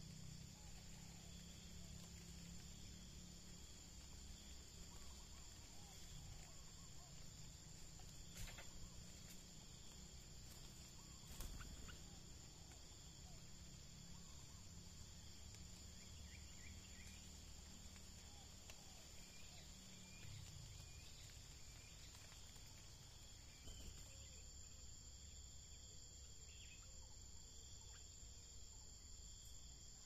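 Faint, steady high-pitched insect chirring, with soft scattered bird chirps and two brief knocks about eight and eleven seconds in.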